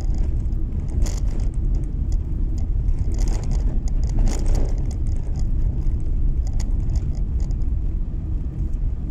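Road noise inside a moving car: a steady low rumble of tyres running on a snow-packed street, with a few brief crackles about a second in and again around the middle.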